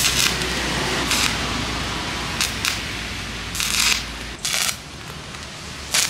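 Stick (arc) welder's electrode arcing on a steel frame, crackling and hissing in a string of short bursts, each under a second, as the joint is tack-welded.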